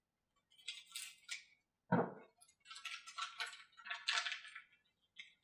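Scissors snipping open a small plastic packet, then a single thump as the scissors are set down on the bench mat about two seconds in, followed by the crackle of the plastic packet being handled and opened.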